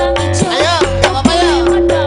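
Live dangdut-campursari music: a woman singing over a band with a steady bass and drum strokes.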